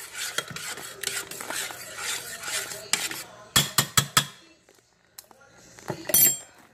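A spoon stirring baked beans in a saucepan, scraping against the pan, then four sharp clinks of the spoon on the pan about three and a half seconds in, and another clatter near the end.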